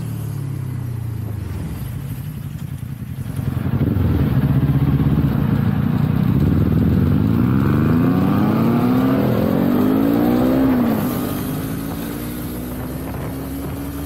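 Kawasaki Z400 parallel-twin engine under way: steady at first, then louder from about four seconds in, its pitch rising steadily for several seconds as it pulls, dropping off sharply near eleven seconds and settling into a steady cruise.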